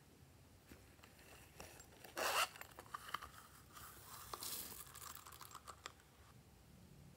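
A short ripping sound about two seconds in, then a stretch of rustling and small pattering clicks as loose gold sequins are shaken out of a flower-shaped bag onto slime.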